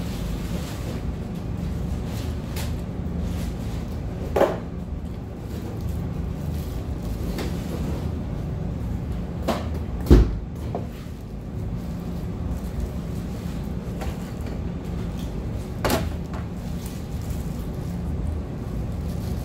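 Fried chicken being eaten and handled at a table, over a steady background hum. A few sharp knocks on the table stand out; the loudest is a low thump about ten seconds in, as the drinking cup is handled.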